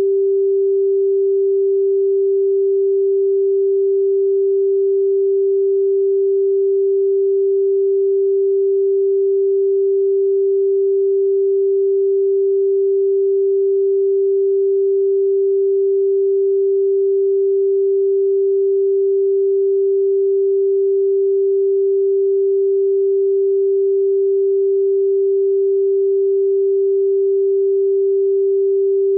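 A steady pure sine tone at 392 Hz, the note G above middle C, held at one pitch and one loudness throughout.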